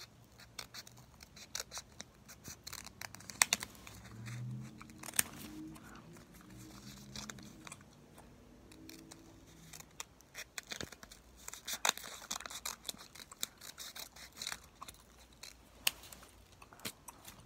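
Scissors snipping paper in many short, irregular cuts, trimming around the outline of a paper pumpkin.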